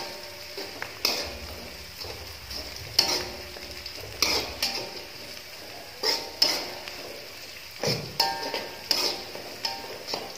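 Metal spatula scraping and knocking against an aluminium wok every second or so, each stroke ringing briefly. Underneath runs the steady sizzle of shallots, garlic and galangal sautéing in oil.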